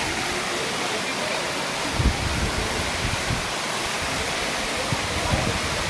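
Waterfall: a steady rush of falling water, with a few short low knocks about two seconds in and near the end.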